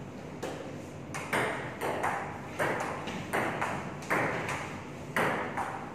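Table tennis rally: the celluloid ball clicking sharply off the rubber paddles and the tabletop, about a dozen clicks at roughly two a second, starting about half a second in.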